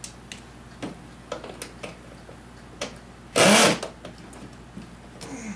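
Power drill-driver run in one short burst about three and a half seconds in, its motor spinning up and winding down, after a few light clicks and knocks.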